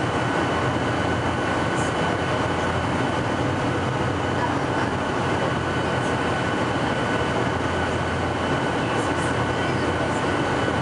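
Airliner cabin noise on the descent into landing: a steady rush of engine and airflow noise heard from a window seat, with a faint steady high whine running through it.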